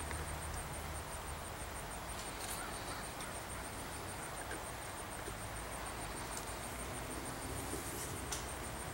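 Quiet outdoor background: a steady low hiss and hum, with two faint sharp pops, one about two and a half seconds in and one near the end.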